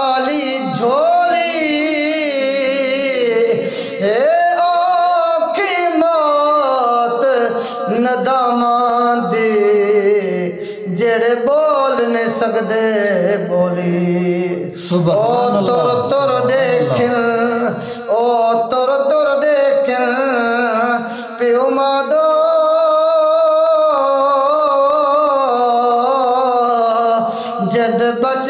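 A male voice singing a naat, an Islamic devotional song in Saraiki/Punjabi, in long melismatic held notes with strong vibrato and sliding ornaments.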